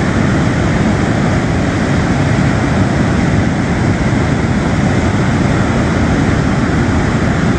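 Steady rush of wind buffeting the microphone, with surf breaking along the beach.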